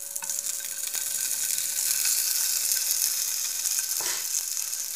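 Slices of calabresa sausage sizzling in a dry frying pan over low heat. The sizzle grows a little louder about a second in.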